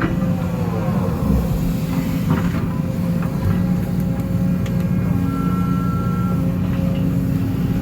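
Case CX210D excavator's diesel engine running steadily under load while digging, with the hydraulics whining and shifting in pitch as the boom and bucket move, and a few clunks of the bucket working.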